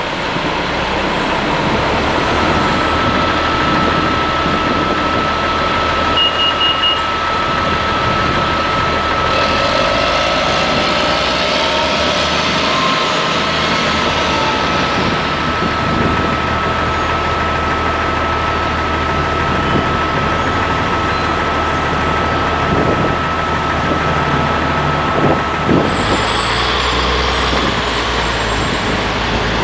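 Gillig Phantom transit bus engine running as the bus pulls away and drives off down the street, with a steady high whine over the engine noise. Near the end, another bus and a car pass close by.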